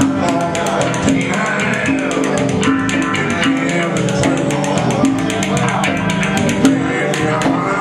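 Live blues-rock band playing: guitars and bass over a steady, quick pulse of hand percussion, with congas and keyboards in the line-up.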